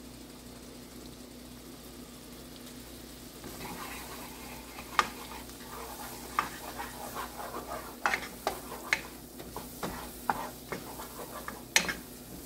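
Melted butter and chopped onions sizzling quietly in a nonstick pan; from about three and a half seconds in, a wooden spoon stirs flour into them to start a roux, scraping and giving irregular sharp knocks against the pan.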